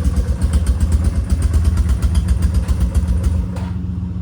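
Yamaha Bear Tracker four-wheeler's single-cylinder four-stroke engine running on a cold start without the choke, with a rapid, even exhaust beat. About three and a half seconds in the beat stops abruptly, leaving a lower, quieter steady hum: the engine cutting out, as it does on a cold start without choke.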